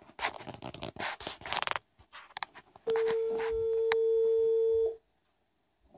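Telephone ringback tone from a phone on speaker: one steady beep lasting about two seconds, starting about three seconds in, as the redialed call rings. Before it, a second or two of indistinct noise.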